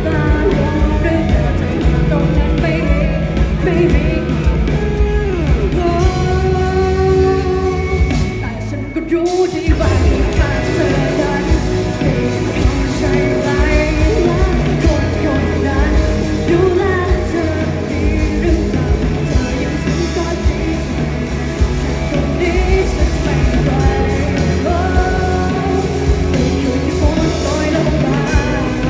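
Live band playing a rock song with a singer, loud throughout, with a short break in the music about nine seconds in before the band comes back in.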